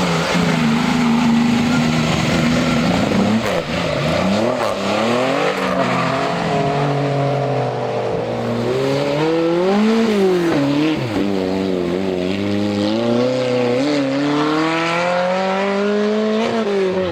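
Historic rally car's engine revving hard on a stage, its pitch held high for a moment and then repeatedly climbing and dropping through gear changes and lifts.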